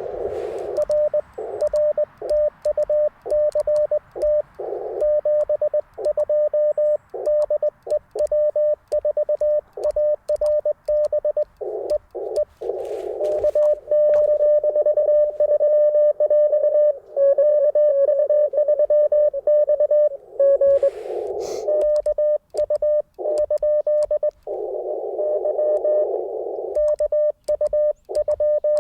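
Morse code (CW) tones from an Icom IC-705 transceiver: one steady pitch keyed in dots and dashes. Some stretches play over the receiver's narrow-filtered hiss and others have clean silent gaps, so sending and receiving alternate during a contact.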